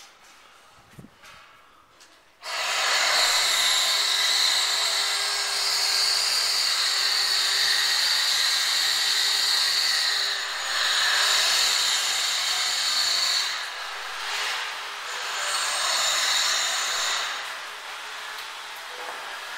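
A power tool starts suddenly about two and a half seconds in and runs steadily with a high-pitched whine, its level dipping briefly a few times in the second half.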